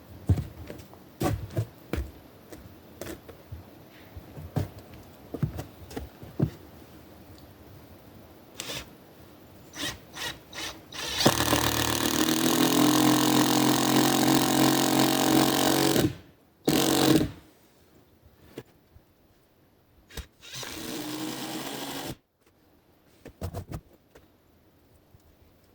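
Power drill driving screws into thick wooden floor boards: a steady whirring run of about five seconds near the middle, a short burst just after, and another shorter run later. Scattered knocks and clicks of handling boards and screws come before the first run.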